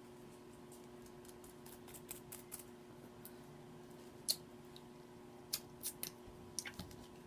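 Faint, scattered clicks and light crinkles of takeout food and packaging being handled, sparse at first with a few sharper clicks in the second half, over a faint steady electrical hum.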